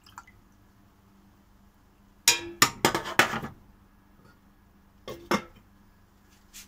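Cookware clattering: a run of loud metal clanks and clinks at a stainless-steel pot about two seconds in, then two more clanks about five seconds in as a glass lid with a metal knob is set on the pot.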